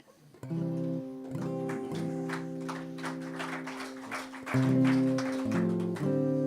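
Acoustic guitar strumming chords. It starts about half a second in, and the chord changes twice near the end.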